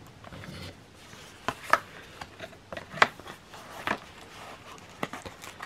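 Cardboard G-Shock watch box being opened by hand: the lid comes off and the inner flaps are folded back, giving about five short sharp scrapes and taps of card spread over a few seconds.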